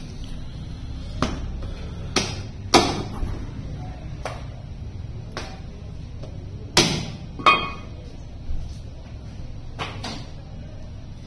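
Butcher's cleaver and knife chopping and tapping on a wooden chopping block while cutting up goat shoulder: about nine irregular sharp knocks, the loudest about three seconds in and around seven seconds in, one with a short metallic ring. A low steady hum runs beneath.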